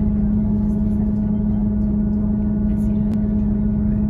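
Northern Class 158 diesel multiple unit heard from inside the carriage: the train's diesel running with a steady, even hum. There is a single short click about three seconds in.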